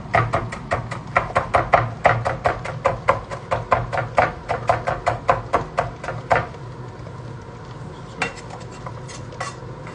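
Chef's knife chopping fresh coriander on a bamboo cutting board: a rapid, even run of blade knocks, about four or five a second, for about six seconds. Then a few single knocks as the chopped herbs are gathered with the blade.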